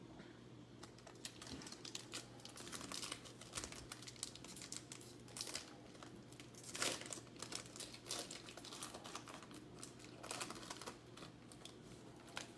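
Basketball trading cards being handled and flipped through by hand: faint, irregular rustling and light clicks, with a few louder handling noises about seven and ten seconds in.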